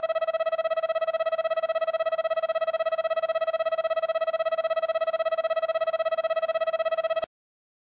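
Platform 1 departure bell at JR Onomichi Station ringing as one steady, rapidly pulsing ring, the signal that the train is about to leave. It cuts off suddenly about seven seconds in.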